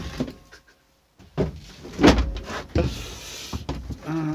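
Handling noise in a small vehicle's cab as the seat is moved: a sharp click, then a run of clunks and knocks and a short scraping rustle.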